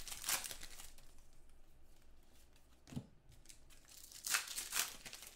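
Trading-card pack wrapper being torn and crinkled, in two short rustling bursts at the start and about four seconds in, with a soft knock around three seconds in.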